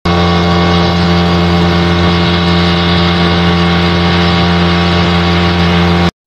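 Outboard motor running at a steady speed, with an even, unchanging engine note; it stops abruptly about six seconds in.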